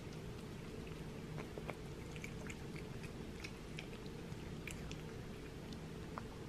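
A cat chewing and lapping soft raw food from a plate: many small wet clicks and smacks, over the steady low hum of a washer and dryer running.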